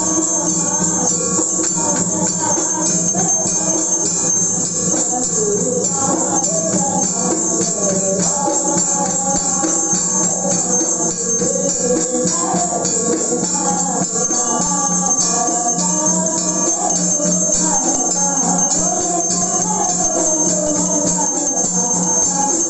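Small brass hand bell rung without pause during aarti, with a large hanging brass temple bell also being struck: a dense, continuous bright jangle. A wavering devotional melody is sung along with it.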